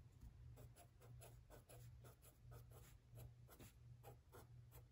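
Faint, quick scratching of a pen drawing X's on notebook paper, many short strokes several times a second.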